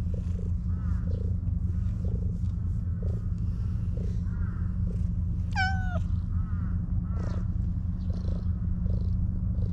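A domestic cat purring steadily while being stroked, with one short meow about five and a half seconds in. Short high calls repeat faintly in the background.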